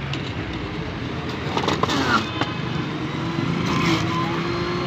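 Electric juicer's motor running steadily, with a few louder grinding spells as carrots are pushed down the feed chute and shredded.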